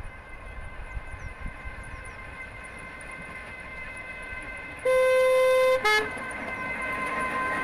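Battery-electric 0-4-0 miniature locomotive running along the track with a steady electric whine. Its horn gives one long toot about five seconds in, then a short second toot. The running noise grows louder as the locomotive comes closer near the end.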